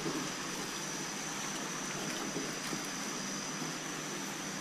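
Shallow creek water running steadily over rocks.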